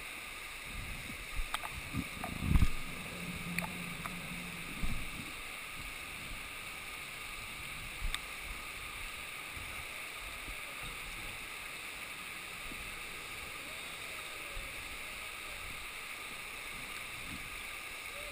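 River water rushing over rocks and small rapids, heard at water level, with water sloshing against the camera in a few low thumps about two to three seconds in and again near five and eight seconds.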